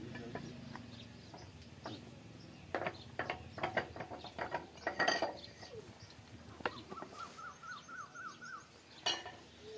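Scattered metal clinks and knocks of hand tools against an old Ruston diesel engine as it is worked on. Near the end a bird gives a quick run of about eight rising chirps.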